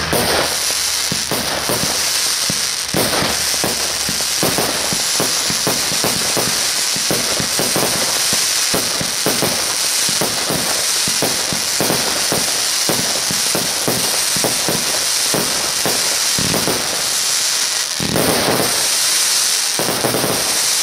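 Dragon Fireworks "49 skud Extreme" 49-shot fireworks cake firing: shots and aerial bursts following each other several times a second over a continuous crackle.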